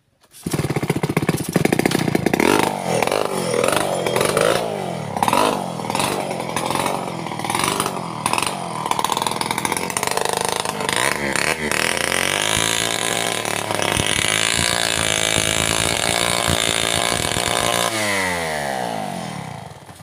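Stihl two-stroke chainsaw revved in uneven bursts, then held at high speed for several seconds. Its pitch falls as it slows near the end.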